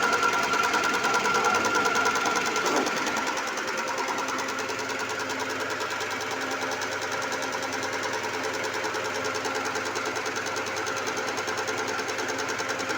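Soybean husk separator machine running with a steady, fast mechanical rattle and a constant whine; it gets slightly quieter about three seconds in.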